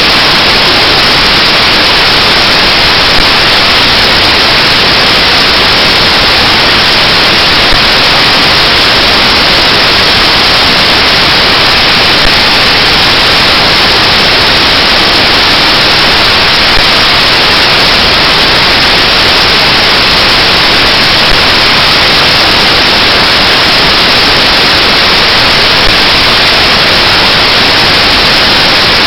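Loud, steady static hiss like white noise, even and unchanging, with no other sound.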